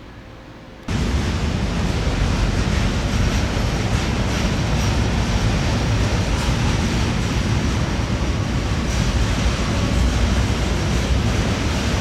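Intermodal freight train rolling out of the station, a loud steady rumble that starts abruptly about a second in. Faint high-pitched wheel squeal rides above it.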